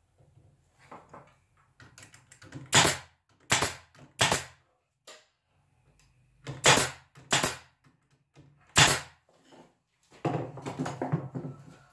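Sharp knocks on wood as a wooden stand is worked on: about six loud single strikes, irregularly spaced roughly a second apart, then a quick clatter of smaller knocks near the end.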